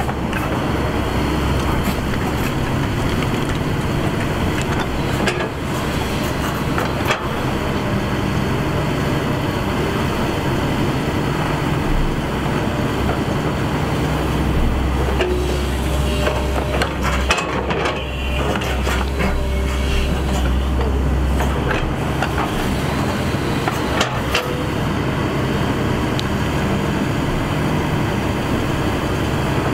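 Shantui ME210LC-1 hydraulic crawler excavator's diesel engine running steadily under digging load, louder for several seconds midway, with a few sharp knocks and scrapes as the bucket works the soil.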